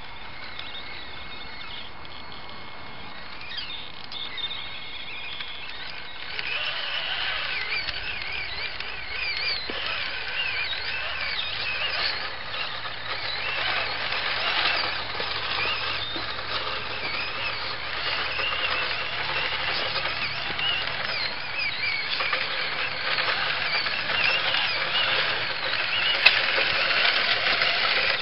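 Radio-control scale truck's electric motor and gears whining, the pitch rising and falling with the throttle as it churns through mud. The whine gets louder about six seconds in.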